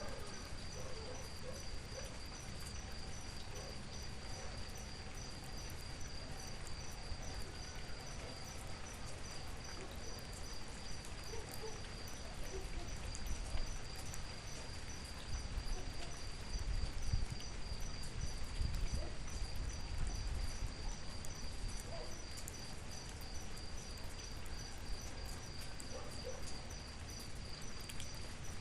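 Light rain falling as an even hiss, with a steady high-pitched insect trill pulsing rapidly throughout and a few soft low rumbles in the middle.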